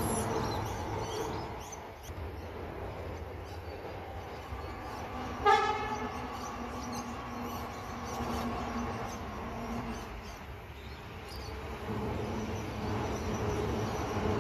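Adelaide Metro 4000 class electric multiple unit train running across a railway bridge, a steady rumble of wheels on rail. About five seconds in, one short toot of a train horn.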